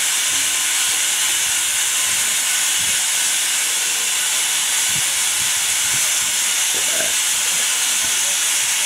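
A loud, steady hiss with no break, heavier in the upper range, with faint murmurs underneath.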